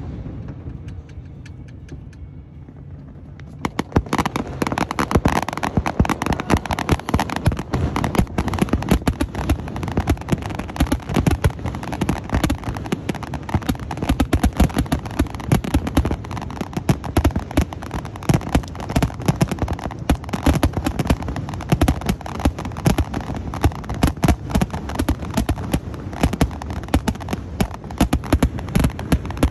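Aerial fireworks display. After a few seconds of low rumble, a dense run of rapid bangs and crackling sets in about four seconds in and keeps going at many reports a second.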